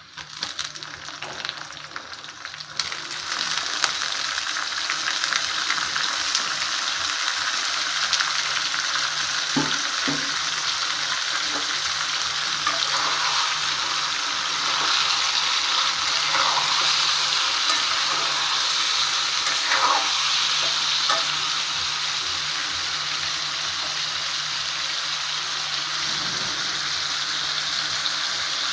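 Hot oil sizzling under raw chicken pieces in a metal pot: chicken being fried in oil with onions and spice paste. The sizzle grows louder about three seconds in and then holds steady, with a few short squeaks partway through.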